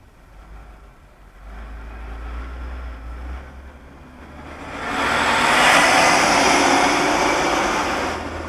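Road traffic passing close by: a low engine rumble builds from about a second and a half in, then a loud rush of engine and tyre noise swells about five seconds in and fades near the end.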